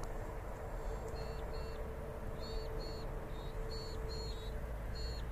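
Steady distant hum of the Durafly Spitfire Mk 24's electric motor and propeller in flight, over low rumble from wind on the phone's microphone. From about a second in, a bird gives short high chirps, often in pairs, about ten in all.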